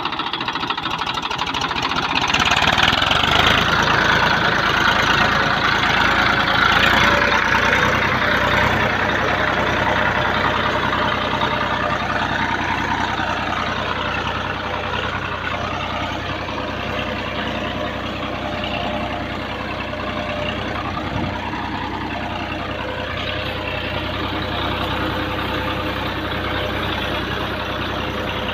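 Massey Ferguson tractor's diesel engine running steadily. It grows louder about two seconds in, then eases back to a steady run.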